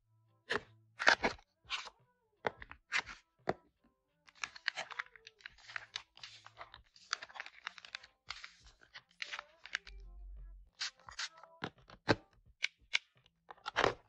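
Small plastic lip-balm cases clicking and tapping as they are opened, handled and set down in an acrylic box. Plastic packaging crinkles through the middle stretch.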